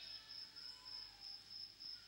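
Faint cricket chirping: a thin, high, evenly pulsing trill that carries on without a break.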